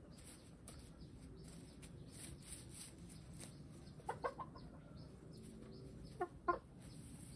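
Hens clucking: a few short clucks about four seconds in and two louder ones a little after six seconds, over faint rustling and pecking in straw bedding.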